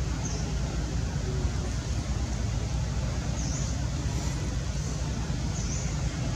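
Steady low rumbling background noise, with three short high chirps spread through it.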